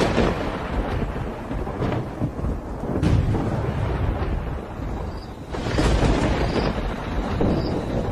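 Thunder rolling as a storm breaks, a deep rumble with a sharp crack about three seconds in and a louder surge near six seconds.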